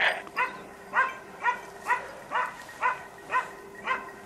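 A hunting dog barking in a steady rhythm, about two barks a second.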